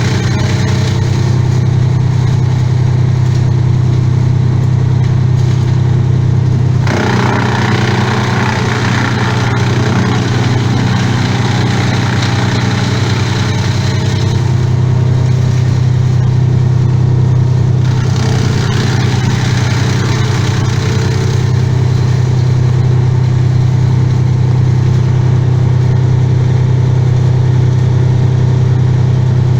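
Engine running steadily at constant speed, with two stretches of louder, rougher noise over it, about seven and eighteen seconds in.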